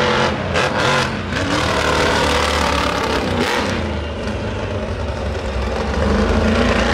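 Monster truck engine running loud and revving, its pitch rising and falling, louder again near the end.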